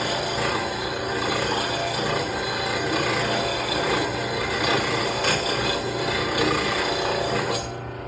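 Grinding wheel of a VEVOR 2/3-horsepower lawn mower blade sharpener grinding an old, beat-up steel mower blade: a steady harsh rasp over the motor's hum. Near the end the grinding stops suddenly and only the motor's hum is left.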